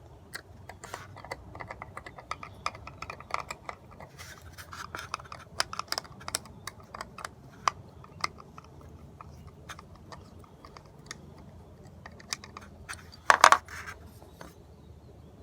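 Small metal screws and a hand tool clicking, ticking and scraping as the screws are handled and driven into a metal mounting disc, with one louder brief clatter about thirteen seconds in.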